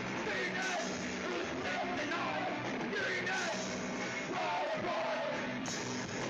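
A recorded Oi!/punk rock song with shouted, yelled vocals over a full rock band.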